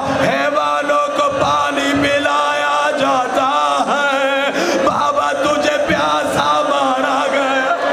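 A man's voice chanting a mournful lament in a wavering, drawn-out melody over a steady low tone.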